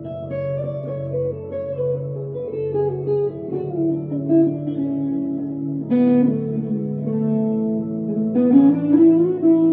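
1965 Fender Stratocaster electric guitar played through an amplifier: a slow melodic line of single notes over low held notes, with chords struck about six seconds in and again near the end.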